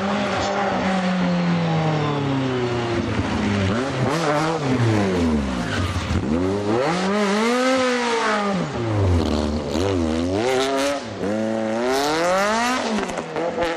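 Ferrari F355 race car's V8 engine at high revs through a hairpin. Its pitch falls over the first few seconds as it brakes and slows, then rises and falls several times as it accelerates and changes gear.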